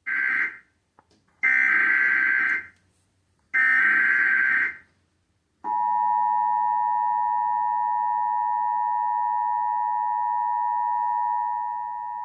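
Emergency Alert System header: three short bursts of buzzy digital SAME data, about a second each. About five and a half seconds in, the steady two-tone EAS attention signal of 853 and 960 Hz starts, dropping slightly in level near the end.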